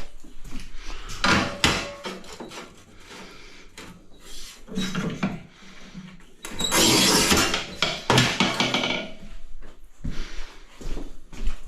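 Light taps and clinks of a hand tool chipping small pieces out of the edge of a hole in a ceramic tile, with a rough, steady noise lasting a couple of seconds past the middle.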